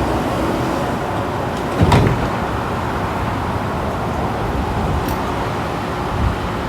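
Inside a WMATA Metrorail car: the train's steady low rumble, with a single sharp knock about two seconds in.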